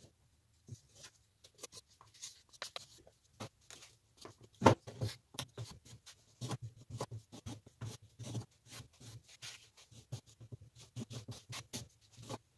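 Putty knife scraping and spreading Bondo body filler over a pallet-wood wheel: a run of short, irregular scrapes and taps, with one sharper knock about five seconds in.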